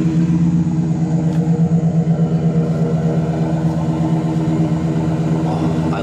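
Ford Crown Victoria's 4.6-litre V8 idling steadily, warm, heard from the exhaust tailpipe.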